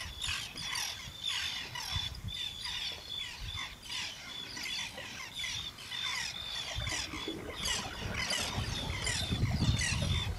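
Birds calling in a busy, steady chatter of short chirps, squeaks and repeated whistled notes, with a low rumble rising about seven seconds in.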